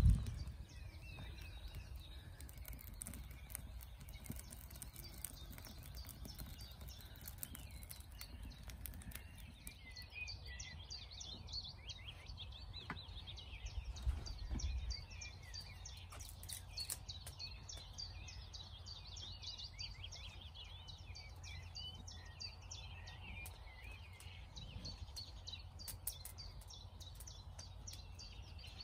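Small birds singing and chirping, a busy chorus of short high calls and trills over a low steady rumble. There is a soft thump about fourteen seconds in.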